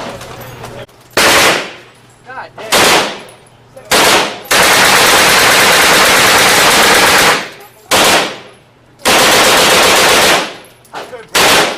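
Bursts of automatic gunfire at a shooting range: seven loud bursts, one of them held for about three seconds in the middle, each trailing off in echo.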